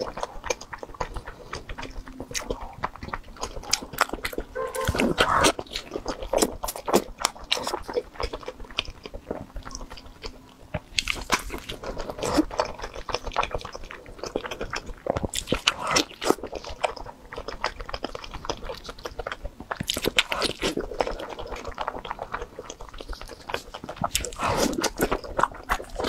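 Close-miked biting and chewing of a glazed grilled eel fillet: a steady run of sharp mouth clicks, with louder bites every few seconds.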